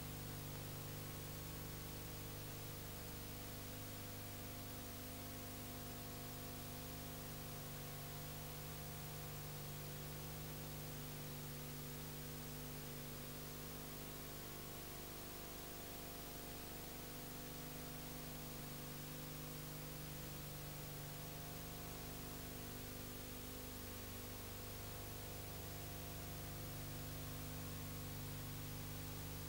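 Steady hiss with a low electrical mains hum, unchanging throughout: the background noise of a silent film's video transfer, with no sound from the scene itself.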